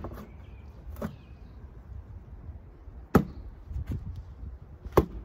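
Bowie knife thrust into a cardboard target, repeated: two loud sharp hits about 3 and 5 seconds in, with softer knocks about 1 and 4 seconds in.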